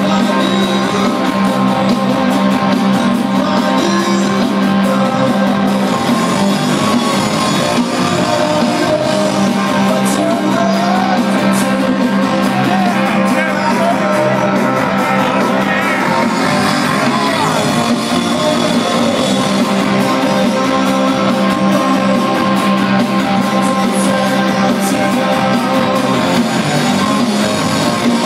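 A rock band playing live on stage, guitar-led, loud and unbroken, as heard from within the crowd in the club.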